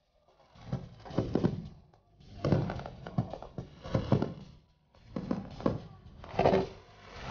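Fireworks shells bursting overhead: a series of sharp booms about once a second, each dying away quickly, with short quiet gaps between them.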